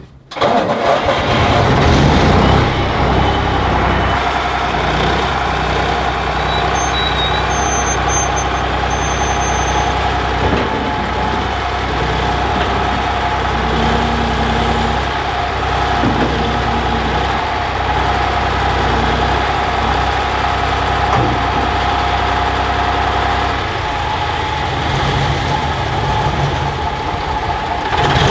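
Excavator's diesel engine running steadily while the machine is driven off.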